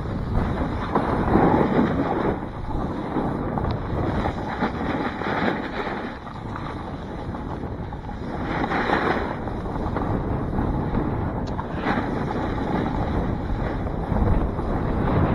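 Wind rushing over the microphone with the hiss and scrape of a snowboard sliding over snow, swelling and easing as the rider turns.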